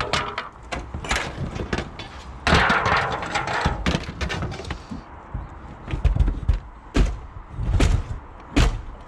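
Knocks, thuds and clatter of a roof window frame and timber being prised and pulled out on a stripped tile roof. A loud scraping clatter lasts about a second and a half a couple of seconds in, then four heavy thumps come in the last three seconds.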